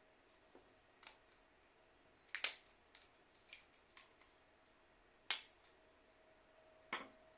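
Faint, scattered clicks and taps of small plastic parts and tools being handled while taking apart a smart radiator thermostat, with three sharper clicks about two and a half, five and seven seconds in.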